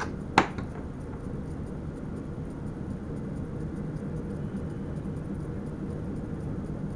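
Steady rumbling running noise of an NS Sprinter electric train, with one sharp click about half a second in.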